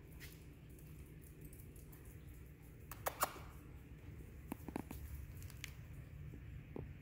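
Dogs' toenails clicking lightly on a ceramic tile floor as they walk about: scattered faint ticks, with two sharper clicks about three seconds in and a few more near the end.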